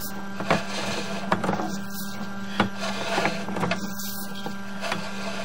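Sewer inspection camera being pushed along a drain line: irregular clicks and knocks from the push cable and camera head, about one a second, over a steady hum.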